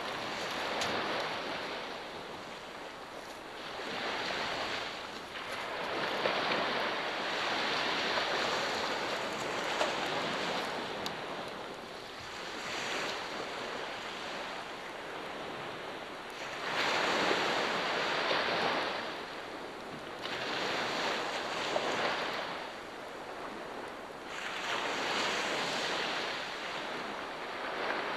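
Sea waves breaking and washing up on a shore. The surf swells and falls back in surges every few seconds.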